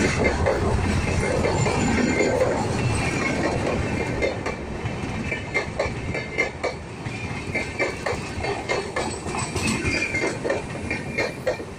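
Passenger coaches of an arriving express train rolling past at low speed. A steady rumble of wheels on rail eases about four seconds in, after which the wheel clicks over rail joints and points stand out, irregular and spaced.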